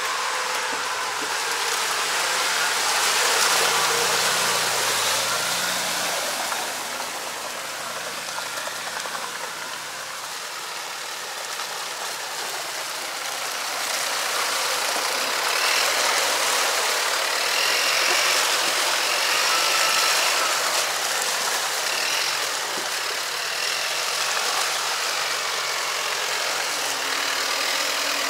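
An off-road 4x4's engine running as it drives, against a continuous hiss of noise. It gets quieter in the middle and louder again in the second half.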